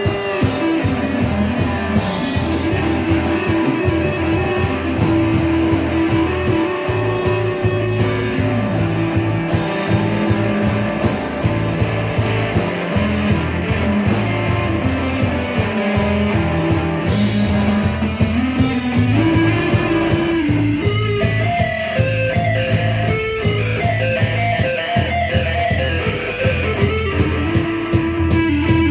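Live rock band playing an instrumental passage with no vocals: electric guitar lines that slide and bend in pitch over a driving drum kit, with occasional bright cymbal-like splashes.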